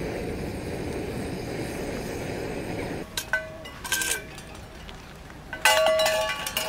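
Handheld gas torch burner running with a steady rush, which stops sharply about three seconds in. Then metal cups hanging from a hanger rack clink and ring as they are knocked together: two clinks, then a louder flurry near the end.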